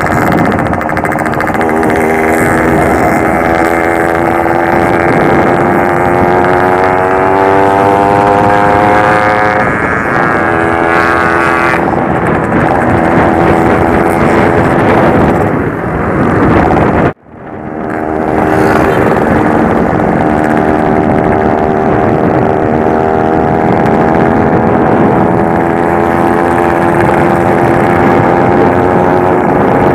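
Yamaha RX-King's two-stroke single-cylinder engine pulling under way. Its note climbs steadily, drops back and changes pitch between about nine and twelve seconds in, then climbs again. The sound cuts out for a moment about seventeen seconds in.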